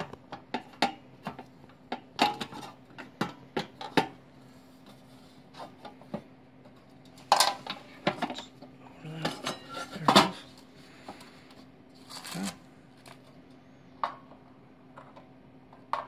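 Sheet-metal parts of a kerosene heater clinking and clattering as its outer ring is fitted back on: a run of light metallic clicks and knocks, with louder clanks about 7 and 10 seconds in. A faint steady low hum runs underneath.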